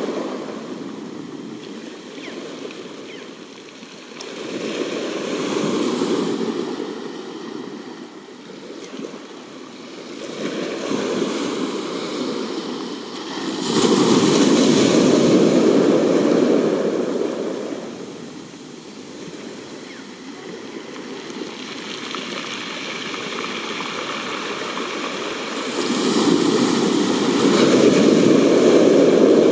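Sea waves breaking and washing on the shore, a steady rushing that swells and fades in slow surges every few seconds, loudest about halfway through and near the end.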